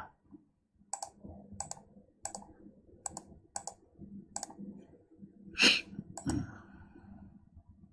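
Computer mouse clicking: six evenly spaced single clicks, one per password character entered on a mirrored phone keyboard, then a louder click and another just after as the Next button is pressed.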